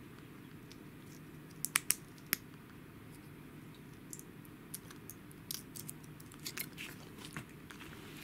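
Plastic-and-foil blister pack being handled and a tablet pressed out of it: a few sharp clicks about two seconds in, then softer scattered crackles.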